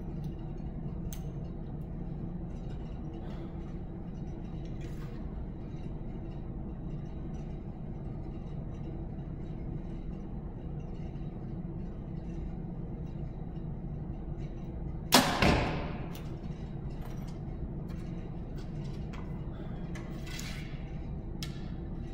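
A 2014 PSE Dominator compound bow is shot once about 15 seconds in: a sharp, loud crack with a second hit a fraction of a second after and a short ring-down. A steady low hum runs underneath.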